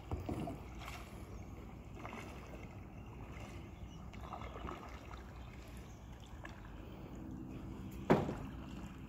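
Kayak paddle strokes dipping and splashing in lake water, with wind on the microphone. A single sharp knock about eight seconds in is the loudest sound.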